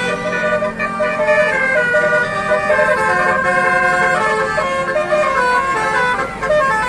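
Bus basuri horn, a multi-trumpet musical air horn, playing a tune of several held notes sounding together and stepping from pitch to pitch. It stops abruptly near the end.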